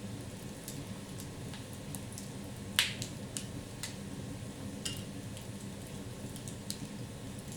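Wood fire in a fireplace crackling: scattered sharp pops and snaps over a steady low rush of the flames, with one loud pop about three seconds in.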